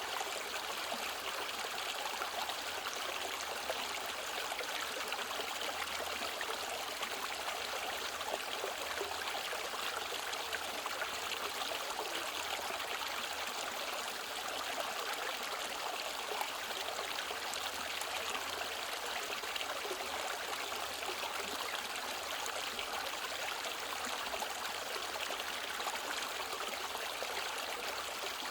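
Mountain stream running steadily over rocks, an even rushing and trickling of water that does not change.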